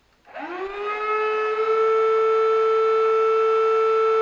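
Electric air pump switched on to reinflate an inflatable kayak. About a third of a second in, its motor starts with a whine that rises in pitch over about a second and a half, then runs at a steady pitch.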